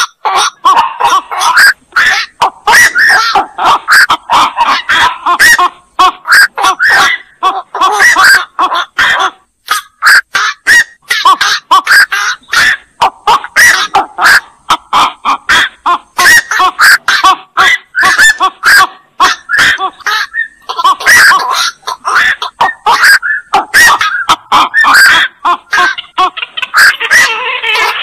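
Black-crowned night herons (burung kowak) calling: short 'koak' squawks in quick succession, several a second and overlapping, getting denser near the end.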